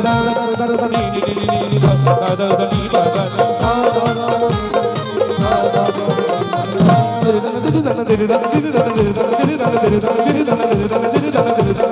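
Qawwali accompaniment: rapid, driving hand-drum strokes over sustained notes from an electronic keyboard.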